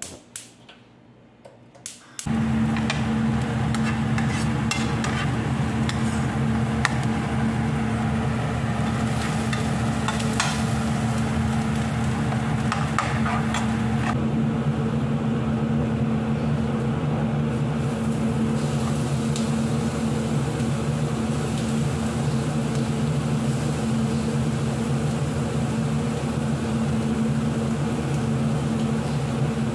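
A few light clicks, then a loud, steady motor hum switches on suddenly about two seconds in. Under it, diced onions sizzle in a non-stick frying pan and a metal spatula stirs and scrapes them.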